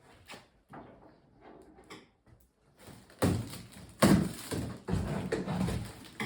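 Handling noises: a few faint clicks, then from about three seconds in a run of knocks and rustling, the loudest a sharp knock about four seconds in.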